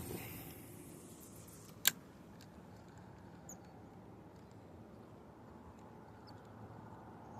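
A single sharp click about two seconds in, then a faint, steady background with a few light ticks.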